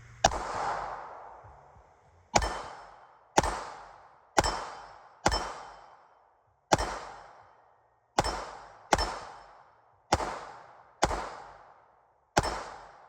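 Eleven single shots from a 9mm Glock 19-pattern pistol with a compensator, fired at an uneven pace of about one a second, each shot ringing out and fading over about a second.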